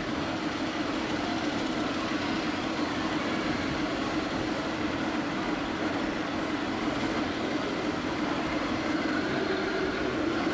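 Scale RC truck's sound module playing a diesel engine running steadily as the truck slowly pulls a heavily loaded low-loader, with a constant low drone.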